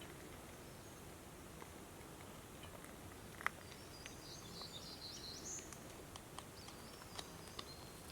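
Faint outdoor ambience with a small bird singing briefly in the middle, a quick run of high chirps. There are a few faint clicks, the loudest about three and a half seconds in.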